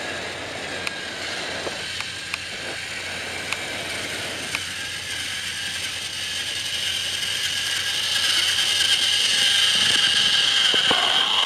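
Battery-powered Trackmaster toy train's motor and gearbox whirring as it runs on plastic track. A few light clicks come in the first half, and a steady high whine grows louder in the second half as the engine comes closer.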